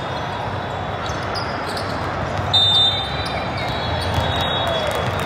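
Busy sports-hall din of several volleyball games at once: balls being struck and bouncing, and distant voices, with sharp knocks scattered throughout. About two and a half seconds in, a referee's whistle gives one short blast, the loudest sound.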